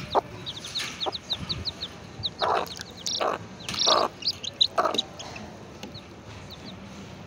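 Baby chicks peeping, a steady stream of short, falling cheeps, with a mother hen clucking four or five times in the middle.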